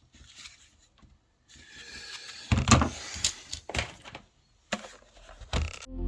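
Laptop parts being handled on a bench: a faint scraping, then a handful of sharp plastic clicks and knocks, the loudest about two and a half seconds in.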